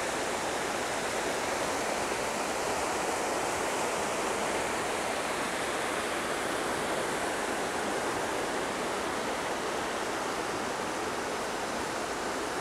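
The Goat River rushing over rocks through shallow rapids: a steady, even rush of water.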